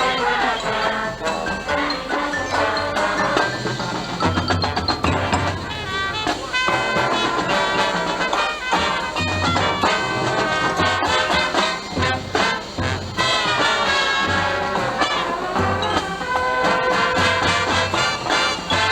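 High school marching band playing: brass carrying the melody over drums, with recurring low bass notes.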